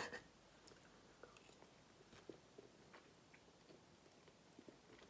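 Near silence with faint chewing of a mouthful of burger and a few small scattered clicks.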